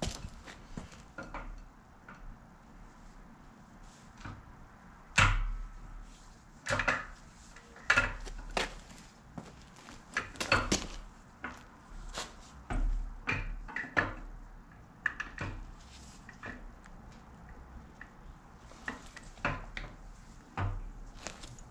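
Steel stage 2 camshaft being fed by hand into the cam bearings of a cast-iron LQ4 V8 block, its lobes and journals knocking and clinking against the bearings in irregular strikes, the loudest about five seconds in.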